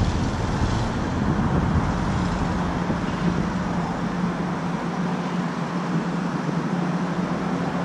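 Steady city road traffic: an even wash of passing car engines and tyre noise with a constant low hum underneath.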